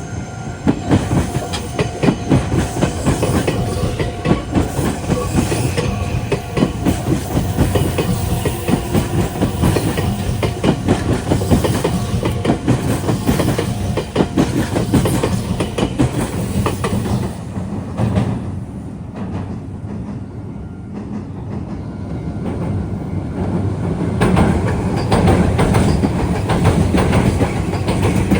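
Meitetsu electric train passing close by, its wheels clattering rapidly over the rail joints and points of the junction over a steady rumble. The clatter eases off about two-thirds of the way through and grows loud again near the end.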